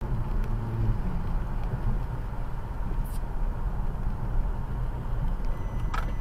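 A car driving, heard from inside the car through a dashcam microphone: steady low engine and road noise.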